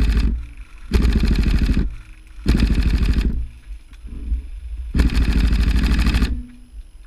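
Tokyo Marui HK416D Recoil Shock airsoft electric gun firing full-auto bursts, a fast mechanical rattle of its gearbox and recoil mechanism. One burst ends just after the start, then three more of about a second each follow with short pauses between.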